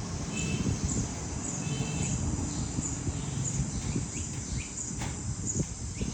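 Outdoor ambience: a high chirp repeating about once a second, like an insect, over a steady low rumbling noise, with a few soft clicks in the second half.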